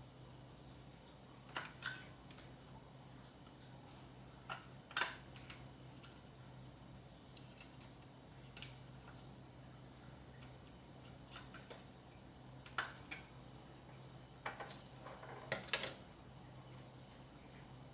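Scattered small clicks and taps in irregular clusters, as of plastic and metal parts of a wall socket being handled and fitted during rewiring, over a faint steady hum.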